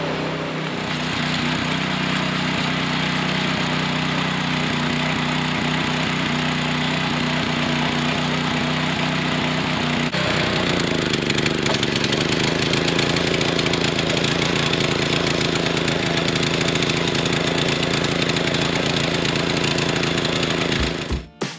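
Harbor Freight Predator small engine on a tiller running steadily. About halfway through its note drops and the sound gets rougher and noisier, as under a change of load.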